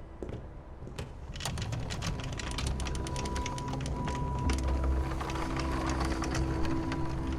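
Rapid, irregular mechanical clicking and ratcheting over a low hum and a held high tone, growing gradually louder.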